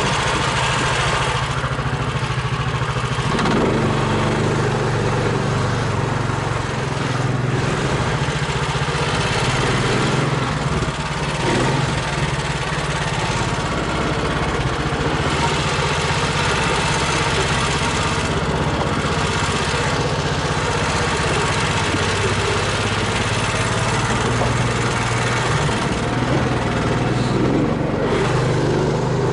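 Engine of a homemade low-pressure-tyre all-terrain vehicle (karakat) running steadily as it drives.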